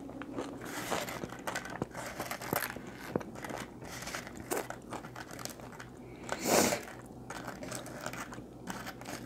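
Close-miked chewing of food: small wet mouth clicks and soft crunches, with one louder brief rustle about six and a half seconds in.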